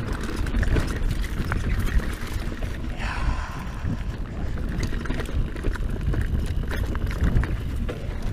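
Scott Genius full-suspension mountain bike ridden over a rough dirt singletrack: wind rumble on the microphone and tyre noise over dirt and stones, with many sharp clicks and rattles from the bike over the bumps. A brief louder rush about three seconds in.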